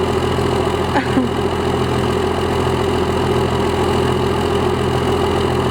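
First-generation Dodge Ram's Cummins 5.9 inline-six diesel idling steadily. A brief, higher gliding sound comes about a second in.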